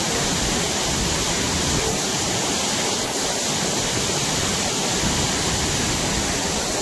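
The Marmore Falls pouring steadily: an even, unbroken rush of falling water.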